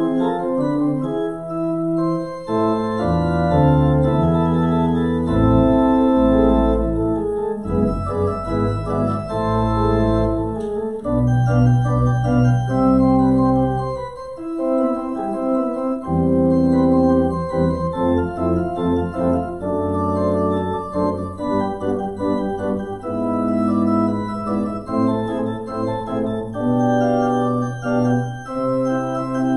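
Church organ playing held chords over deep bass notes, the harmony changing every second or two.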